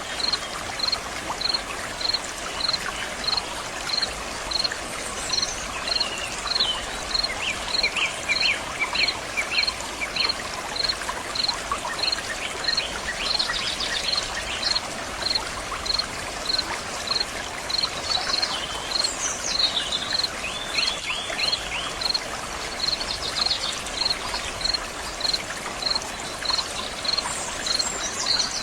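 Stream water flowing and splashing steadily. An insect chirps in a high, even pulse about twice a second throughout, and birds call now and then.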